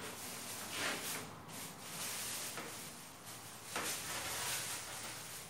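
Rustling, rubbing and scraping as hardware is handled and moved about, with louder scrapes about a second in and again near four seconds.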